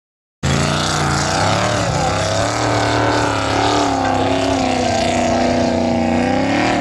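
Formula Offroad hill-climb car's engine running at high revs under heavy load as it climbs a steep gravel slope, its pitch wavering up and down. It cuts in suddenly about half a second in.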